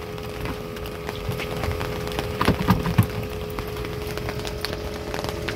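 Scattered ticking of the first raindrops of a downpour hitting the boat and the water, with a few louder knocks about halfway through and a faint steady hum underneath.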